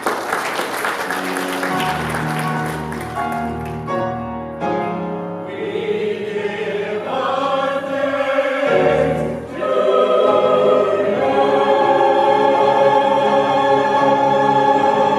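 A choir singing held chords that change every second or two, growing louder about ten seconds in.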